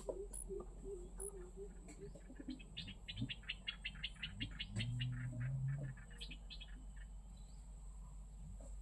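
A small bird chirping in a fast run of short high notes, about ten a second, for a couple of seconds, with a few more chirps later. A low, steady call with a step up in pitch sounds in between.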